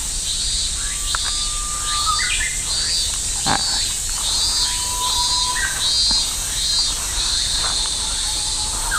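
Cicadas calling over a steady high drone, one pulsing about one and a half times a second before running into a continuous buzz near the end, with a few short bird whistles.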